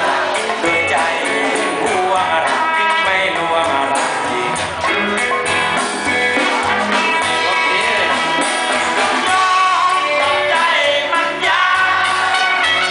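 A live rock band playing, with a lead vocalist singing over electric guitar, drum kit and hand drums.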